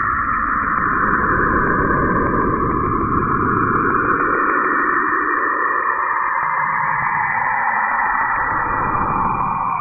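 A planet's 'sound': spacecraft radio emissions converted to audio, a steady hissing, rushing noise whose main band slowly sinks in pitch about halfway through, with a rapid faint ticking over the first few seconds.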